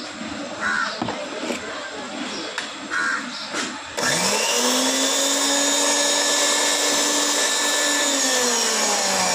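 Belt-driven juicer mixer grinder's motor switched on about four seconds in: it spins up within half a second to a steady whine, runs for about four seconds on its test after a new power cable was fitted, then is switched off and winds down in falling pitch near the end.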